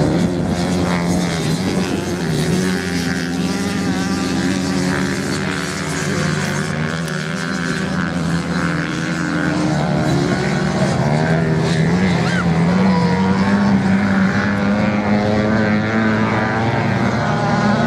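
Several off-road motorcycles racing at once, their engines revving up and easing off in turn as they go round the course, the pitches overlapping and shifting.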